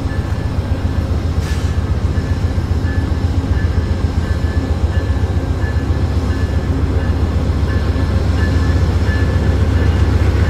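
Two GE P42DC diesel locomotives working in tandem, their 16-cylinder engines running under power as they pull a passenger train away from a station. A deep steady rumble grows gradually louder as they draw nearer.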